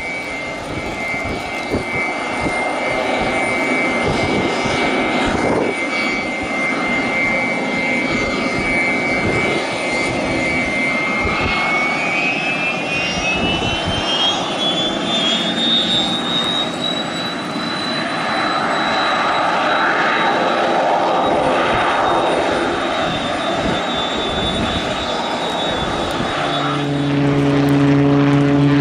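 Air Tractor AT-802's turboprop engine running as the plane taxis: a steady high turbine whine that climbs in pitch about halfway through. Near the end a strong low propeller hum comes in and the sound grows louder as the plane rolls down the runway.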